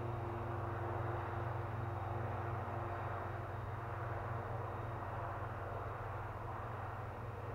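Radio-controlled Depron model Avro Vulcan B2 in flight, its motors a steady distant hum that eases slightly as it flies off, over a constant low rumble.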